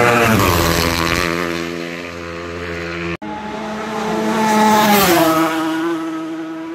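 Classic racing motorcycles passing at speed on a road course: one engine note falls in pitch as it goes by, the sound breaks off sharply about three seconds in, then a second bike comes through with the same falling pitch as it passes.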